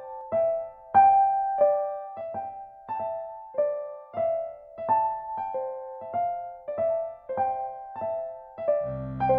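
Casio CTK-2200 electronic keyboard playing a slow melody in a piano voice: single struck notes about two a second, each dying away. Near the end a held low chord comes in under the melody.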